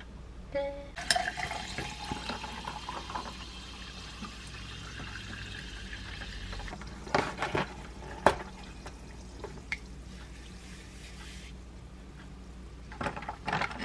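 Sparkling water poured into a tall glass, the pitch rising as the glass fills, then the carbonation fizzing steadily. A few sharp knocks come about seven to eight seconds in, and the fizzing cuts off suddenly near the end.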